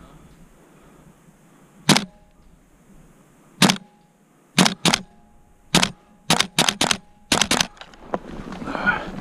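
An airsoft gun firing about ten single shots at uneven spacing: one on its own, then quicker pairs and clusters. Near the end comes a rustling swell of movement.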